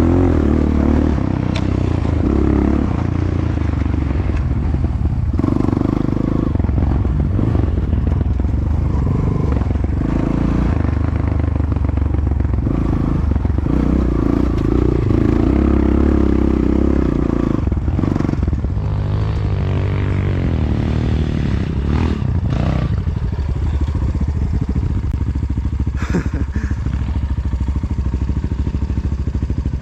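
Enduro motorcycle engine running and revving up and down as the bike rides a trail, with a few sharp knocks and clatter from the bike over rough ground.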